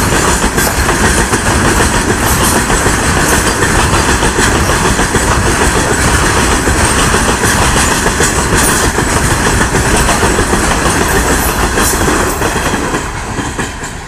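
Loaded coal wagons of a fast freight train rolling past close by: a loud steady rush with the wheels clattering over the rail joints. The sound drops away near the end as the tail of the train with its brake van passes.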